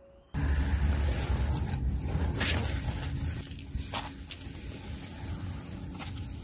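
Low steady rumble of outdoor handling noise, with rustling and a few sharp clicks, as a gloved hand reaches in among pipes to a street-cat feeding dish.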